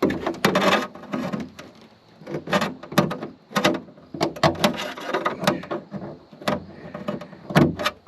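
Hands working the washer hose and its fittings: a run of irregular clicks, knocks and scraping as the parts are pushed and twisted to make them seat.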